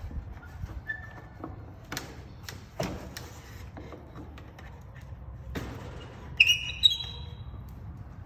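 Scattered knocks and clicks of wheel hardware being handled and fitted, with two short, high squeaks about six and a half seconds in that are the loudest sounds.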